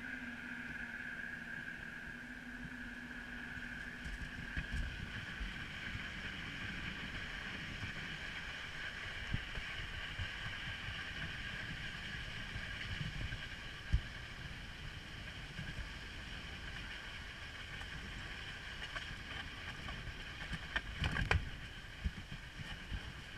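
Monte toboggan's wooden runners sliding down an asphalt road with a steady hissing scrape and rumble. There is a sharp knock past the middle and a cluster of knocks and rattles near the end.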